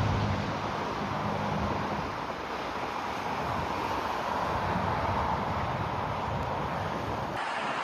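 Jet airliner engine noise dying away after a pass: a low hum fades out in the first second or two, leaving a steady rushing noise that changes abruptly near the end.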